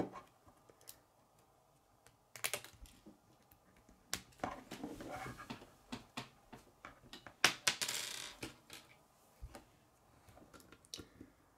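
Plastic K'nex rods and connectors clicking and rattling as pieces are handled and snapped together: irregular sharp clicks, with a couple of brief rattling stretches around the middle.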